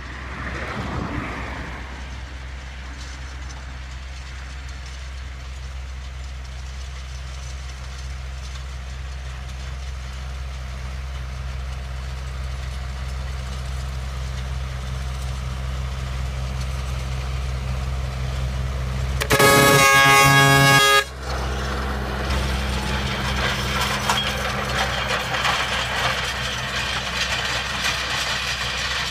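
A farm tractor's diesel engine running steadily under load as it pulls a tillage implement across the field, growing louder as it approaches. About two-thirds through, a loud horn blast lasts about a second and a half, then the engine and the rattle and rush of the implement working the soil grow louder as the tractor passes close.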